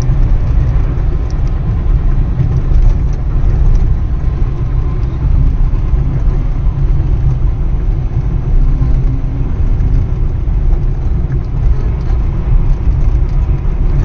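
Steady low rumble of a moving vehicle, loud and unbroken.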